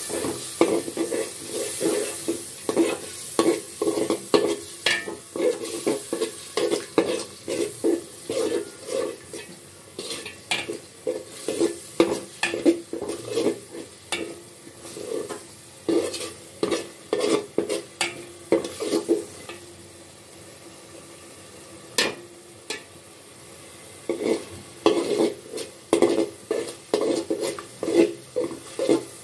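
A spoon stirring and scraping beef in a thick, oily onion-and-spice gravy in a metal pot, in quick repeated strokes about twice a second, over steady sizzling. The stirring stops for a few seconds a little past the middle, broken by a single sharp clink, then starts again.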